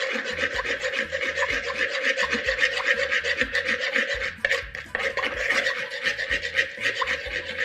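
A spoon scraping and stirring around a wooden bowl, mixing a marinade: a fast, continuous run of short rasping strokes with a brief pause a little over halfway through.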